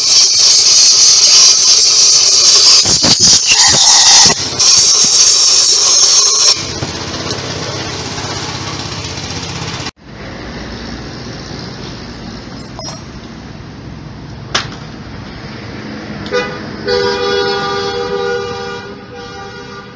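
A compressed-air gun blasts through a Suzuki Alto carburetor to blow out water and petrol. It makes a loud hiss in long bursts with brief breaks and stops about six seconds in. Near the end a vehicle horn sounds for about two seconds.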